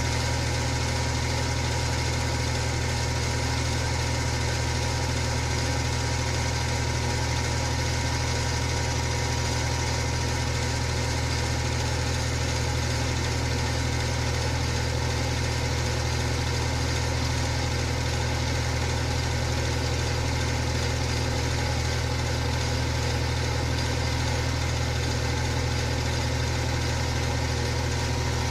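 Electric fan running steadily: a constant low motor hum under an even rush of air, with no change in speed.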